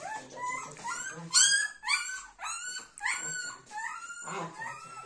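Newborn puppy crying: a rapid string of short, high-pitched squeals and whimpers, about two a second, the loudest about a second and a half in.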